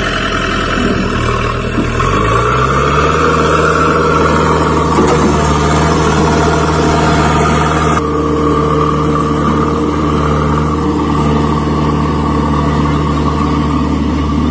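JCB backhoe loader's diesel engine revving up about two seconds in, then running steadily at raised revs as the machine drives off.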